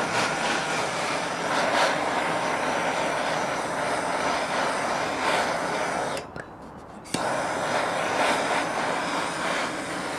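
Gas torch flame burning with a steady rushing noise as it scorches the wood surface and cracks. It drops away for about a second a little past the middle, then comes back abruptly.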